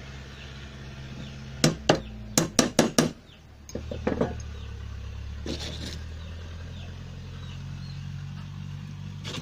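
Sharp metallic clinks of a steel hammer head knocking against its solid steel bar handle as it is worked into place: a quick run of about six clinks around two seconds in, then a few lighter knocks. A steady low hum runs underneath.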